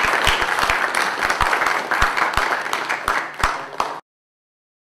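Audience applauding, many hands clapping densely, cutting off suddenly about four seconds in.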